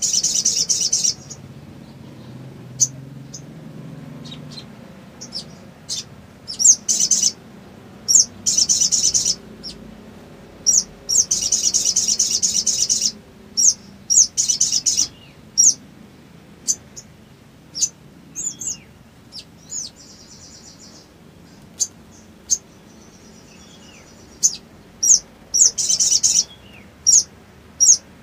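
Male olive-backed sunbird singing from a cage: sharp, high chips scattered throughout, broken up by fast, rattling trills of about a second each, the longest lasting nearly two seconds.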